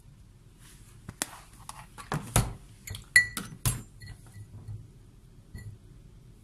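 A spoon knocking and scraping against a pan as cooked mixed vegetables are spooned out: a run of clatters and taps over about three seconds, the loudest a ringing metallic clink about three seconds in, then a few faint taps.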